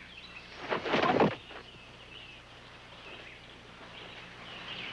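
Birds chirping in the background, with one loud, short cry about a second in.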